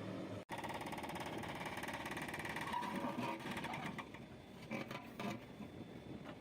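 A machine running with a fast, even mechanical clatter, which thins out after about four seconds into scattered knocks and clicks.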